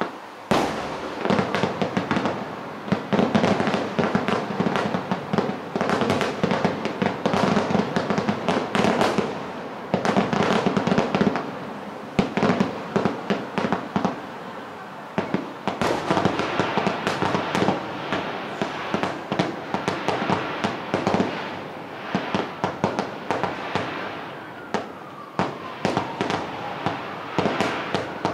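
Fireworks show barrage: aerial shells bursting in rapid succession, several bangs and crackles a second, thinning briefly around halfway before picking up again. Near the end a siren starts up, rising and falling in pitch beneath the bursts.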